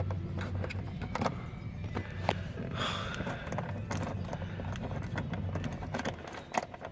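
Socket wrench clicking in short irregular runs, with metal clinks, as a tight 17 mm seatbelt anchor bolt is worked loose.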